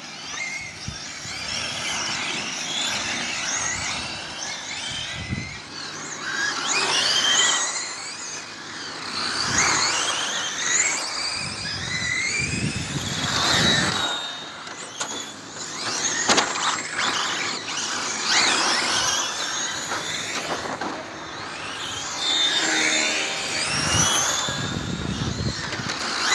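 Several 1/8-scale electric GT radio-controlled cars racing, their brushless motors whining high. The pitch keeps rising and falling as the cars accelerate, brake and pass close by.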